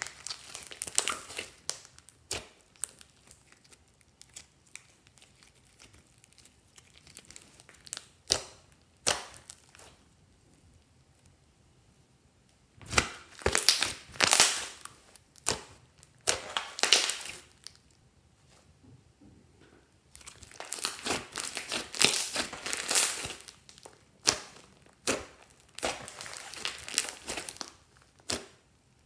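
Glossy slime with clay mixed in being squeezed and kneaded by hand, giving sticky crackling and popping as air pockets are squashed. It comes in bursts, thick about halfway through and again for most of the last third, with sparse clicks and a short quiet spell before that.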